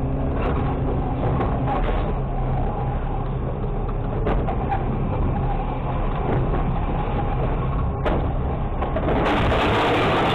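Automated side-loader garbage truck running, its engine and hydraulics making a steady mechanical hum with scattered knocks and clanks. A knock comes about eight seconds in, and the sound grows louder and fuller just after as the lifting arm raises a recycling cart to tip it into the hopper.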